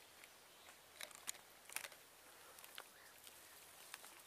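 Near silence, broken by a handful of faint short clicks: a few about a second in, and one or two more near the end.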